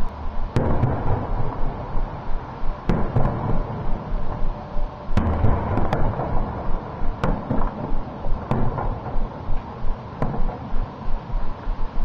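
Fireworks display: aerial shells going off with sharp bangs every second or two, about eight in all at uneven spacing, most followed by a short deeper boom.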